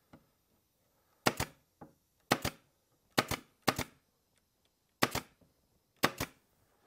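Pneumatic brad nailer firing six times, roughly once a second, each shot a sharp double clack, fastening a freshly glued panel of the jig.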